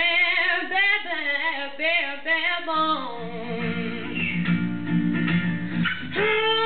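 A woman singing a slow song to her own acoustic guitar. For about the first three seconds she holds wavering sung notes without words, then the strummed guitar chords come forward for about three seconds, and her voice returns strongly near the end.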